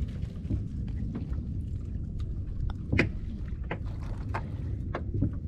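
Steady low rumble of wind and water, with scattered small clicks and knocks; the loudest knock comes about three seconds in.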